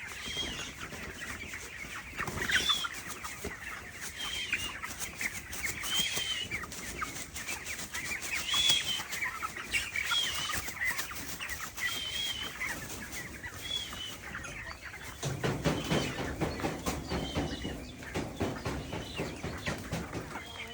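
A flock of 25-day-old broiler chickens calling together: a dense mix of chirps and clucks, with short, higher-pitched calls standing out every second or two. Wing flapping and rustling join in more thickly near the end.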